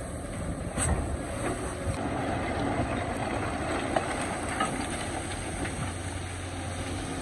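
Excavator working in rock: its diesel engine runs steadily under load while the bucket knocks and scrapes against stone, with sharp knocks about a second in and about four seconds in.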